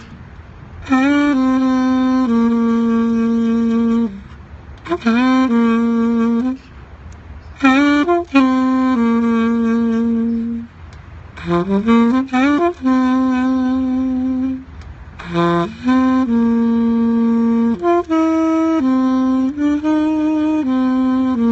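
Saxophone playing a slow melody in phrases of long held notes, each phrase entering with a scoop up in pitch, with short breaks between phrases.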